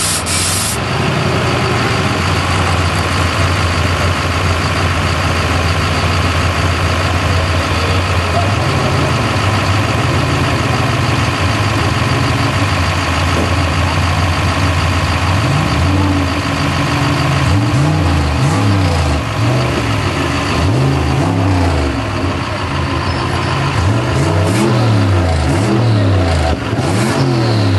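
Pickup truck engine running at a steady idle, then from about halfway through revved up and down repeatedly, each rev rising and falling in pitch about once a second.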